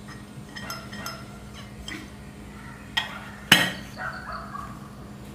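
An aluminium cake tin and a ceramic plate clinking and knocking together as the plate is laid over the tin and the two are flipped to turn out a steamed pudding. There are a few light taps at first, then a sharp click about three seconds in and a louder clink half a second later that rings briefly.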